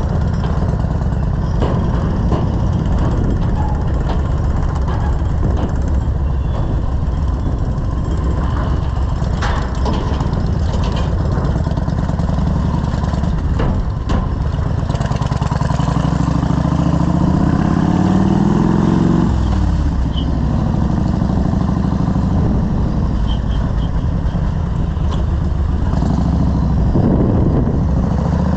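Yamaha Road Star XV1600's V-twin engine running under way with a steady low rumble. About two-thirds of the way through, its pitch climbs for a few seconds as it pulls harder, then drops away, with a smaller rise near the end.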